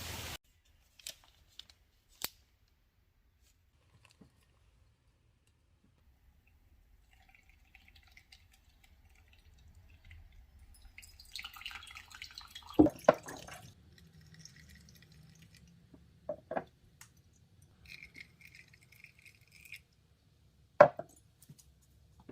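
Kitchen handling sounds: scattered faint clicks, then a few sharp knocks of dishes and utensils, with short stretches of liquid sound in between.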